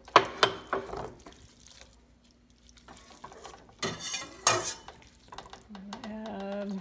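Red silicone spatula stirring and scraping chopped vegetables in a stainless steel pot, with sharp knocks on the pot just after the start. About four seconds in, a metal ladle clatters against a stainless stockpot as it is dipped into the broth.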